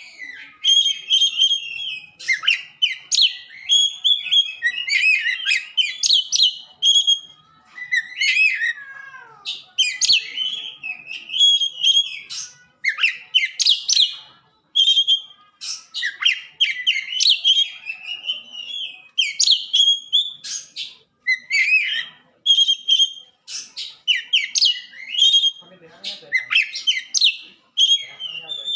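Oriental magpie-robin (kacer) singing steadily: a run of loud, varied whistled and chattering phrases with short gaps between them, including a falling whistled slur about eight seconds in.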